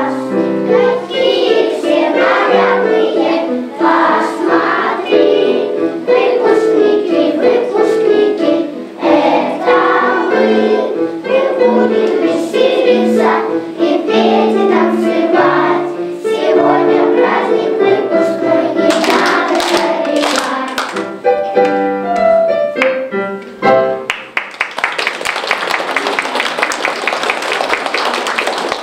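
A song sung by a group of voices over backing music; it ends about 24 seconds in. Applause follows for the last few seconds.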